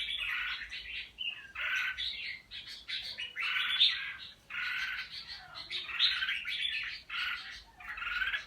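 A pied ('bạch lem') songbird singing short, repeated song phrases about once a second, with brief gaps between them. The keeper says the bird has come into its full voice.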